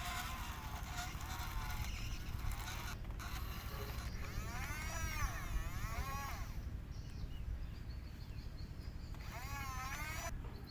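Heavy machinery engine rumbling steadily, with two bouts of high, wavering calls over it, about four seconds in and again near the end.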